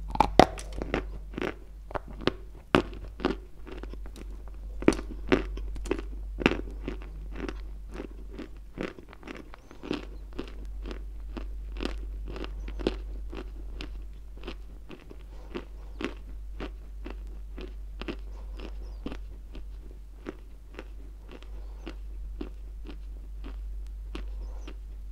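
Close-miked crunching and chewing of a cube of white Turkestan edible chalk, at about two crunches a second. The loudest, sharpest bites fall in the first few seconds, then settle into softer, steady chewing.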